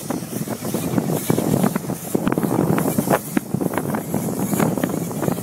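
Wind buffeting the microphone in irregular gusts, over the low, steady noise of a farm tractor working with a round-bale wrapper.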